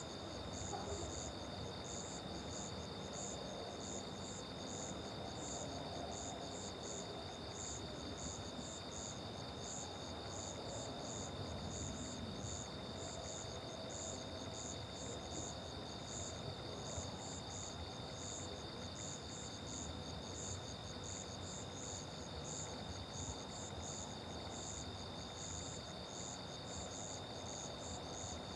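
Night chorus of crickets and other insects: a high chirp repeating about twice a second over a steady, high, continuous trill.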